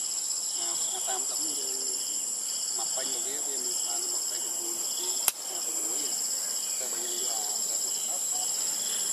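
Steady chorus of forest insects, a high shrill drone with a fast pulsing texture. A single sharp click about five seconds in.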